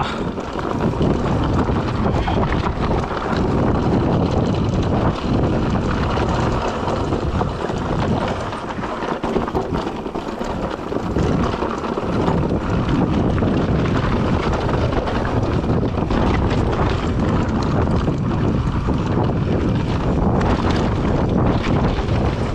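Mountain bike riding down a rocky dirt trail: tyres rolling and crunching over dirt and stones, and the bike rattling over bumps, under steady wind noise on the microphone.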